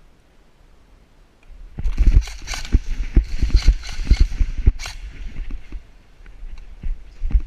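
Close rustling and irregular thumps of a player's gear and footsteps against a worn action camera, starting about a second and a half in, easing off around five seconds and picking up again near the end.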